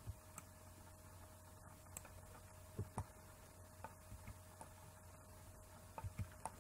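Faint clicks of a computer mouse and keyboard keys, a dozen or so scattered presses, over a low steady hum.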